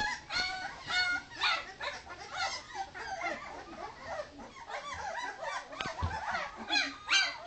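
A litter of two-week-old Leonberger puppies whining and crying over one another, many high, wavering cries at once, loudest near the start and again near the end; they are crying for their mother. A soft bump about six seconds in.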